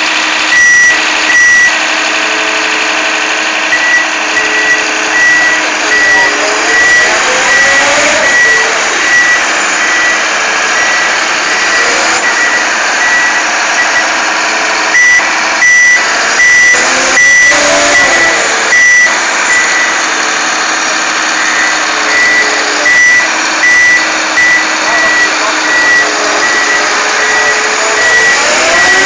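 Ponsse Elephant King forwarder's Mercedes-Benz OM926 diesel engine running steadily, revving up and back down a few times. A high-pitched warning beeper sounds in runs of beeps throughout.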